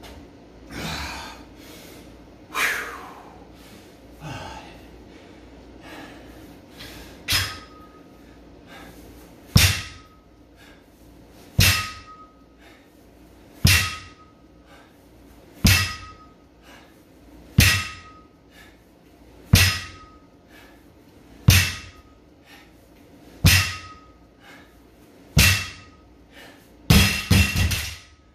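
Loaded barbell set down on rubber floor mats during deadlifts, about nine thuds roughly two seconds apart, each with a brief metallic ring from the bar and plates. Heavy breathing comes before the reps start, and a quick clatter of several knocks follows near the end.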